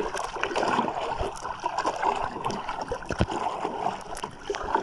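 Water sloshing and lapping against a small boat's hull, with scattered clicks and knocks throughout.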